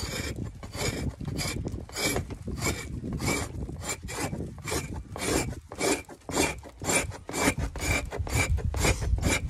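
Axe-head hide scraper rasping down the frozen membrane side of a moose calf hide, in quick, even strokes about three a second, taking the membrane off.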